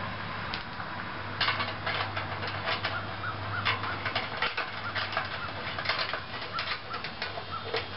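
Small metallic clicks and light rattles of a bolt, nut and washer being fitted by hand through the holes of perforated steel strapping, irregular ticks starting about a second and a half in. A steady low hum sits underneath for the first half.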